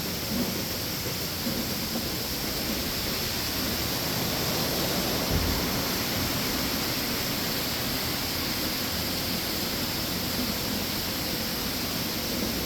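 Steady hissing noise of milking parlour machinery running, with one brief low thump about five seconds in.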